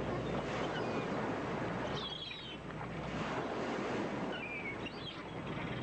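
Ocean surf washing in and out in swells, with a few short high chirps over it.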